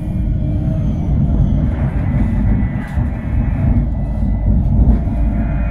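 Berlin tram running along a street, heard from inside the car: a steady low rumble from the wheels on the rails and the running gear.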